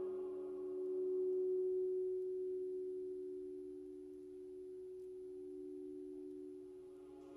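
Meditation music: a sustained ringing tone on two close low pitches, swelling about a second in and then slowly fading.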